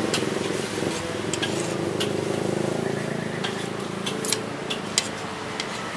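Street ambience with a steady vehicle engine hum, cut through by occasional sharp clinks.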